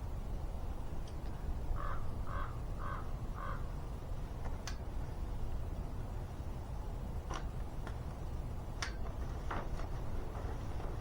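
A bird calling four times in quick succession, then a few scattered sharp clicks or knocks over a steady low rumble.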